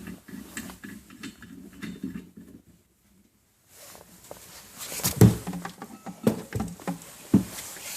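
Handling noise as a gas regulator is fitted onto a CO2 tank: low rustling and scraping, then after a brief dead gap, several sharp knocks and clicks of metal parts, the loudest about five seconds in.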